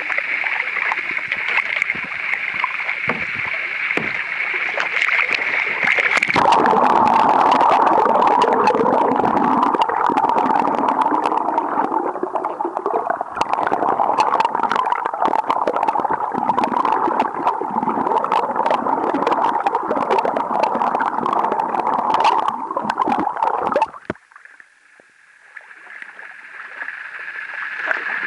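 Kayak paddling on the sea, with water splashing and rushing. About six seconds in it turns suddenly louder and muffled, with bubbling and many small crackling clicks, as the camera goes under the water beside the hull. Near the end it drops abruptly quieter as the camera comes back out.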